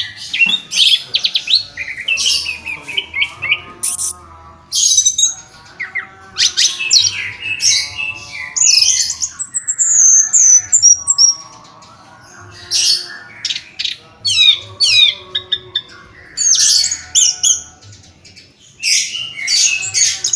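Orange-headed thrush singing in repeated bursts of rapid, varied high notes, some sweeping and some sharp, with short pauses between phrases.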